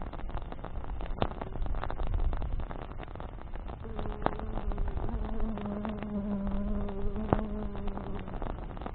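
A flying insect buzzing close by with a steady hum for about four and a half seconds, starting a little before the middle, over the crackle and sharp pops of a burning wood campfire.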